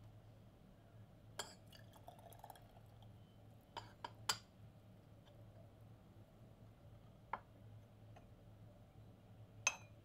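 Porcelain gaiwan and its lid clinking against each other and against a glass pitcher, half a dozen sharp clinks, with tea briefly pouring and dripping through a strainer into the pitcher. The loudest clink comes near the end as the lid is lifted off the gaiwan.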